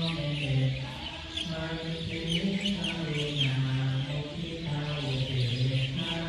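Buddhist chanting in low voices, held on long steady notes that step from one pitch to another, with many birds chirping busily over it.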